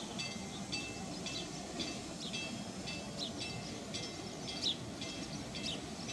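Bascule bridge warning bell ringing steadily, about two strokes a second, while the bridge span stands raised. A few short bird chirps sound over a steady low background hum.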